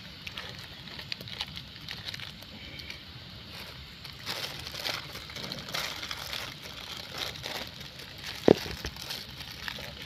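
Open wood fire of twigs and dry grass crackling and popping, with one sharper pop near the end.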